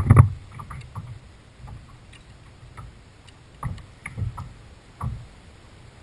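Handling noise on a kayak as a spinning rod and reel are picked up and worked: a loud bump right at the start, then scattered light clicks and three dull knocks on the hull near the middle.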